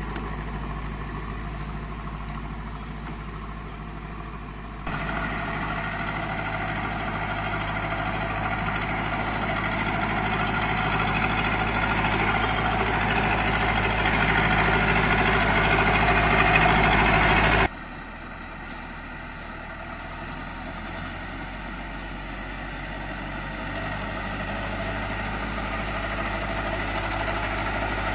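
Zetor 5745 tractor's four-cylinder diesel engine running steadily. About five seconds in it turns suddenly louder and brighter, grows a little louder still, then drops back abruptly about two-thirds of the way through.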